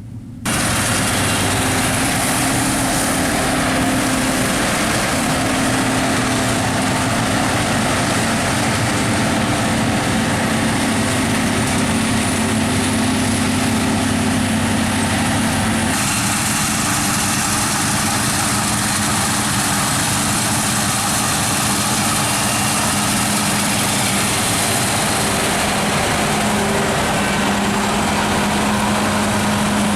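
Claas combine harvester working: its diesel engine and threshing machinery run steadily under a dense rushing noise. The sound cuts in sharply about half a second in and shifts abruptly about halfway through, where a second shot of the machine begins.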